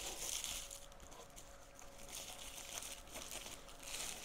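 Clear plastic packaging bag crinkling as it is handled and pulled open, in irregular rustles that come and go.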